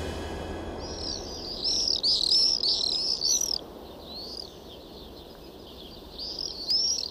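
Swifts screaming: shrill, high calls in quick runs, starting about a second in and lasting a couple of seconds, fainter in the middle, then rising again near the end, over a steady hum of city noise.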